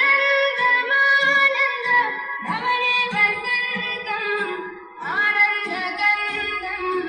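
Music with a high female singing voice, sung in held, sliding phrases over instrumental backing, with a brief drop just before the last phrase.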